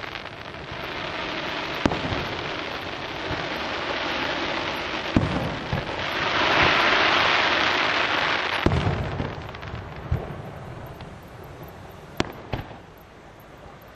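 Aerial fireworks display: a dense crackling hiss of burning shells that swells loudest midway and then dies down, with sharp bangs of shells bursting scattered through it and a couple of separate reports near the end.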